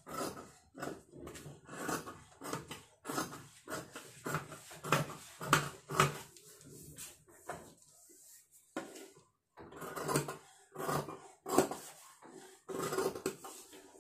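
Tailor's scissors cutting blouse fabric along a pinned paper pattern on a table: short snips, about two a second, with a brief pause near the middle.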